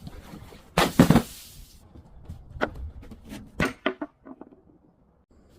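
Something brittle being smashed or crushed: one loud crunching crash lasting about a second, followed by a scatter of sharp clicks and knocks that die away.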